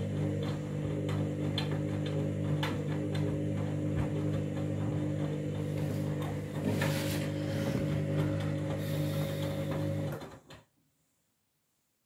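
Front-loading washing machine drum turning near the end of its main wash: a steady motor hum with light clicks about twice a second and a rush of noise around seven seconds in. The sound cuts off abruptly about ten and a half seconds in.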